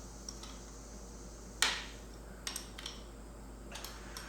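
A sharp metallic click about a second and a half in, then a few faint ticks, from a 12 mm socket wrench working the front axle clamp bolts on a Suzuki DRZ 400 dirt bike.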